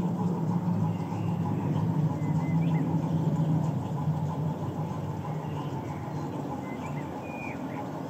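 LGB G-scale model train, a Zillertalbahn loco with coaches, rumbling along the garden-railway track and growing fainter as it pulls away. A few bird chirps come through now and then.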